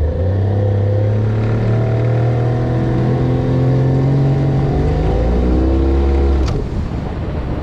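A boat's outboard motor running under throttle as the boat gets under way, its pitch climbing slowly. About six and a half seconds in it is throttled back sharply, with a click, and the level drops.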